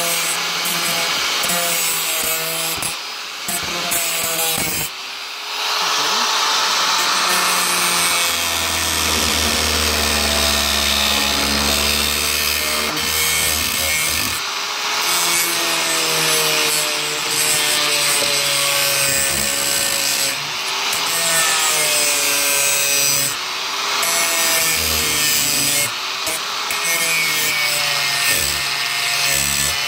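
Power grinder cutting and grinding the edge of a fibreglass-reinforced (FRP) roof panel, its motor pitch wavering up and down as it bites in and eases off, with brief let-offs a few seconds in.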